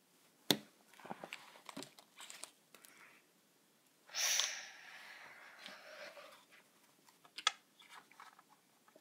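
Light taps and clicks of small plastic toys and fingers on a wooden tabletop, the sharpest a tap about half a second in, with a brief rustle about four seconds in and a few more clicks near the end.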